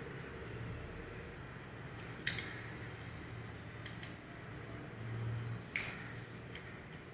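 Door interlock lock being opened up by hand: two sharp metallic clicks, about two seconds and nearly six seconds in, with a few fainter ticks of metal parts and tools between them.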